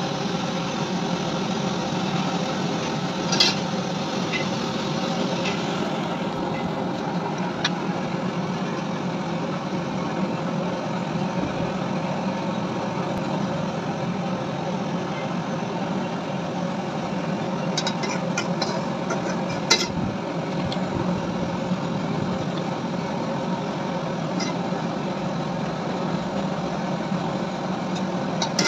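A steady mechanical drone, like an engine or machine running, with a few sharp metallic taps and clicks, the loudest a few seconds in and a cluster near the two-thirds mark.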